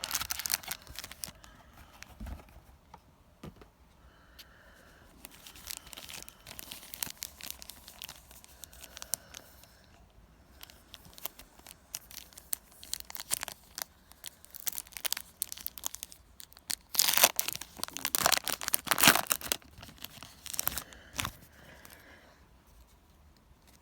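Yu-Gi-Oh booster-pack packaging crinkling and being torn open, in scattered rustles with a louder run of tearing about 17 to 20 seconds in.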